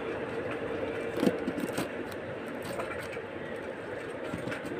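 Cardboard shipping box being cut and opened with a knife: scraping and crackling, with a few light knocks about a second in, over a steady background rumble.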